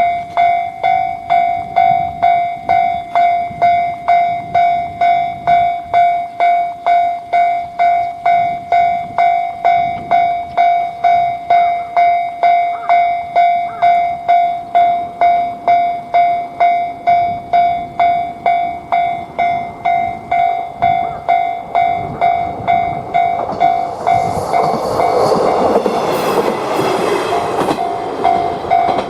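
Japanese railway level-crossing bell ringing its steady 'kan-kan', a little under two strikes a second. About 23 seconds in, a train passes over the crossing, its rumble loudest for a few seconds, while the bell keeps ringing.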